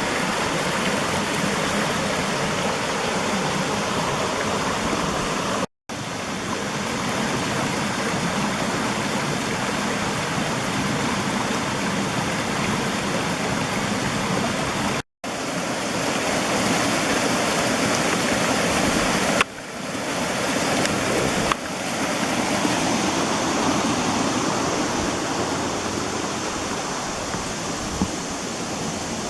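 Small creek waterfall splashing into a pool, a steady rushing of water. The sound drops out abruptly twice for a moment, and a couple of sharp clicks come about two-thirds of the way through.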